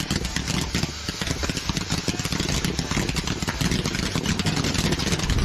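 Aerosol insecticide spraying into a plywood tunnel where a firework is throwing sparks: a steady crackling hiss. After about three and a half seconds a low rumble grows as the spray begins to catch fire.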